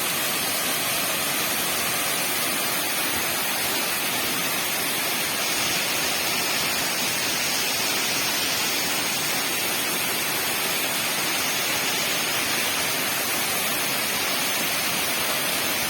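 Waterfall with a steady, unbroken rush of falling water.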